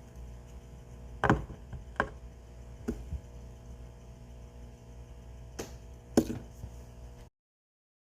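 A handful of sharp knocks and clicks of hard parts being handled on a work surface, as during fishing reel restoration work, over a low steady hum. The sound cuts off abruptly near the end.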